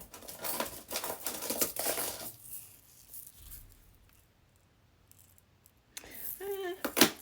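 Small hard bead containers and beads clicking and rattling for about two seconds while a stash of seed beads is searched through. It then goes quiet, and a brief bit of voice comes near the end.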